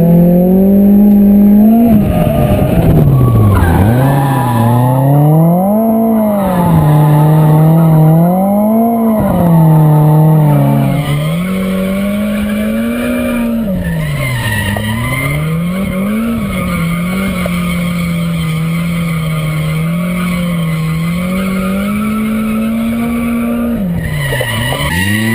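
A Nissan drift car's engine revving up and down over and over, with tyres squealing and skidding as it drifts.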